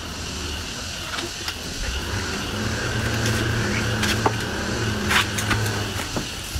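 An engine running steadily with a low hum, growing louder about two seconds in, with a few sharp knocks and scuffs over it.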